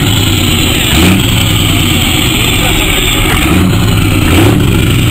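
Heavy truck diesel engine running loud and steady, with a few short rises in engine pitch.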